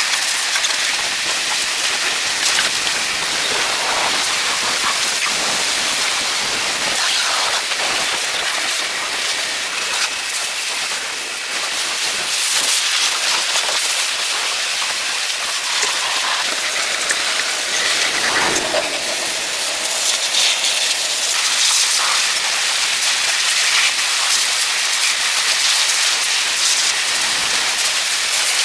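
Steady, loud hissing noise with scattered small clicks and knocks.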